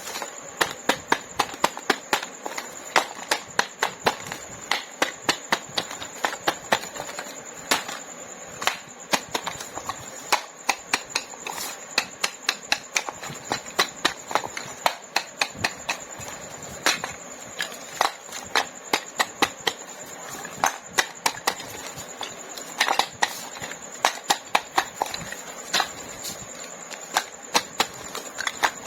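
Plastic toy fruit and vegetables being cut with a toy knife: a string of sharp plastic clicks and taps, about two or three a second, over a faint steady high whine.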